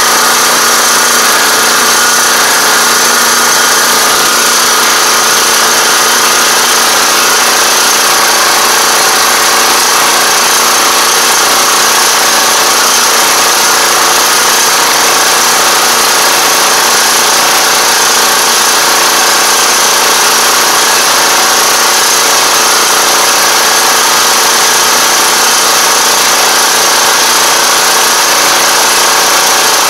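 2021 Iseki five-row riding rice transplanter running steadily while planting in a flooded paddy: engine and planting mechanism heard close up, loud and even, with a strong steady hiss over the engine's hum.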